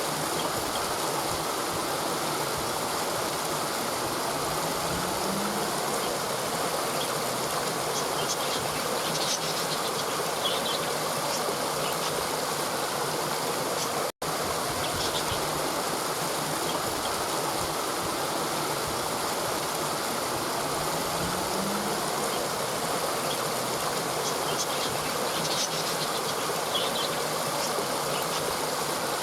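Steady rushing of a river stream flowing over rocks, with a brief sudden gap about halfway through.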